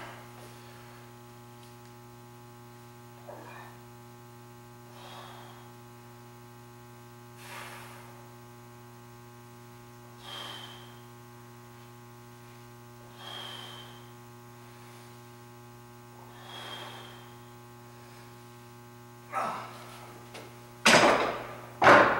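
A man breathing out hard about every three seconds through a set of dumbbell reps, over a steady electrical hum. Near the end, heavy dumbbells clank several times as they are set back on a metal rack; these are the loudest sounds.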